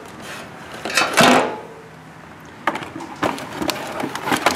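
Automotive test gear (timing lights, dwell meter) being handled and packed into a box: a scraping rustle about a second in, then several light knocks and clunks.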